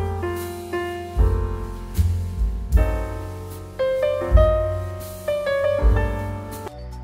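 Background piano music: a gentle tune over deep bass notes struck about once a second, thinning out near the end.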